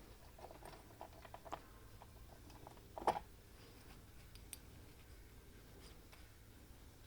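Faint clicks and taps of small adapter ferrules being handled and tried against a brushcutter's arbor, with one louder tap about three seconds in.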